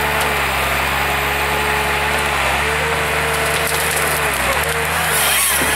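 Valmet 911.1 forest harvester running steadily under work, its diesel drone overlaid by a hydraulic whine that shifts in pitch as the boom swings a Moipu 500 energy-wood head onto a small tree. Near the end the head grips the stem, with a brief crackle of wood and snow.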